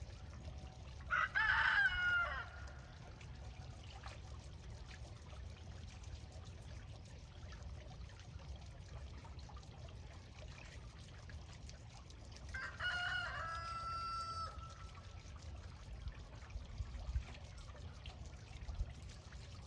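A rooster crowing twice, about ten seconds apart, over a steady trickle of water.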